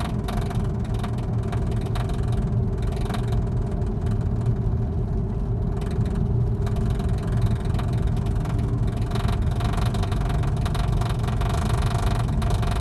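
BMW 535i at highway speed: a steady low rumble of engine and road noise, with a constant hum running through it. This is the noise that comes on only above 55 mph and goes away below it; its cause is unknown.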